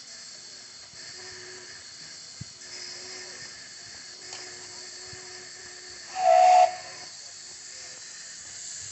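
Steady hiss of steam from a miniature live steam locomotive, broken about six seconds in by one short, loud blast of its steam whistle.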